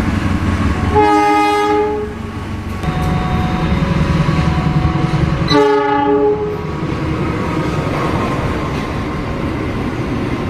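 Train horn sounding two blasts about four and a half seconds apart, each lasting under a second, over a steady low rumble.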